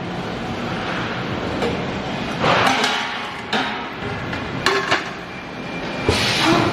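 CNC pipe dividing machine running: a steady mechanical noise broken by several sharp metallic knocks and clinks at irregular intervals.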